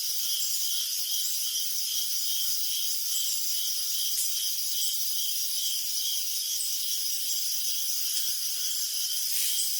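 Crickets chirping: a regular pulsing chirp, about two to three a second, over a dense high-pitched insect chorus.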